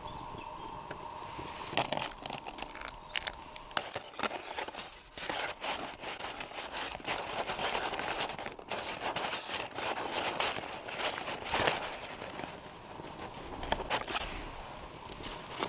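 Thin bag lining crinkling and rustling while pancake batter is mixed in it, first by hand and then stirred with a wooden spatula, with irregular scrapes and small clicks throughout.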